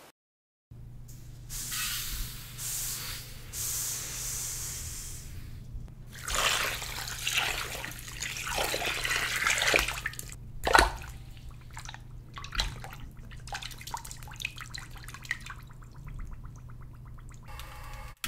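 Water poured from a glass jug into a hammered copper pot of sugar, splashing, with one sharp knock just after the pour. Trickling and dripping follow, over a steady low hum.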